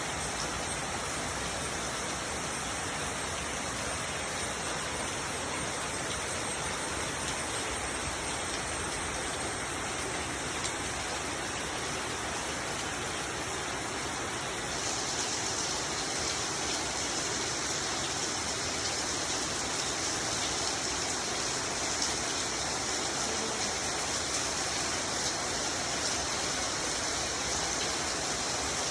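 Steady rainfall, an even hiss of rain on surfaces with no separate drops standing out; it grows a little louder and brighter about halfway through.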